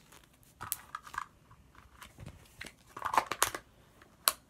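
Cloud slime being stretched and squished in the hands, giving irregular crackling, tearing sounds in short bursts, with a sharp click near the end.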